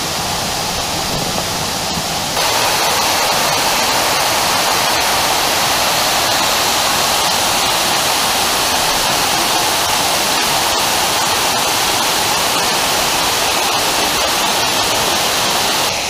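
Waterfall rushing in a steady roar of falling water, jumping louder about two seconds in and then holding even.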